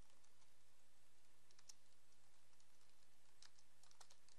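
Faint typing on a computer keyboard: scattered, irregular keystroke clicks as a short line of text is entered.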